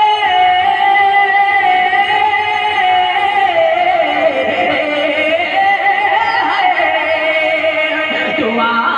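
A man singing a naat unaccompanied, amplified through a microphone, holding one long drawn-out note. The note stays level for a few seconds, dips and rises again, then falls lower near the end.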